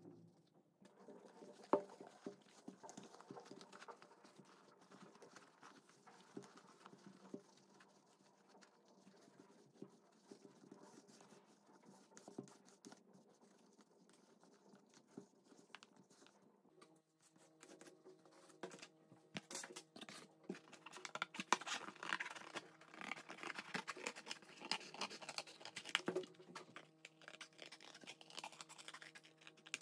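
Faint rustling and light taps of cotton fabric being tucked and pressed into a denim container. In the second half, louder crackling, scraping and snipping of scissors cutting corrugated cardboard.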